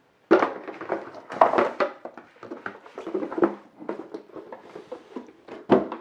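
Rustling and knocking of packaging and parts being handled. The loudest knocks come just after the start, around a second and a half in, and near the end.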